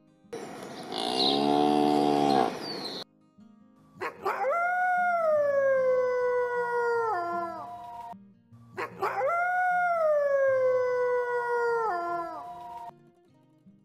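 A long, low cow moo in the first two seconds. Then two long canine howls, each about four seconds, that rise quickly and then slide slowly down in pitch, with a short gap between them.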